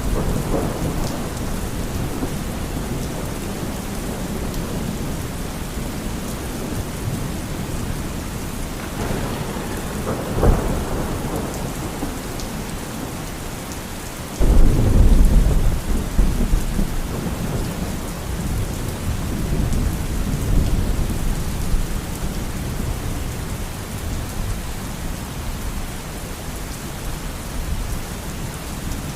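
Steady heavy rain with thunder: a sharp crack about a third of the way in, then a loud, sudden thunderclap about halfway that rolls on as rumbling for several seconds.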